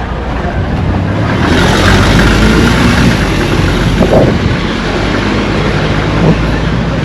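Road traffic: a motor vehicle's engine and tyres running past close by, growing louder about a second and a half in.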